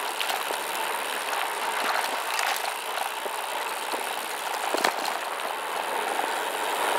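SCOTT Addict Gravel 10 gravel bike riding fast down a rough dirt trail: tyres crunching over loose gravel and rocks and the bike rattling, with a sharper knock about five seconds in.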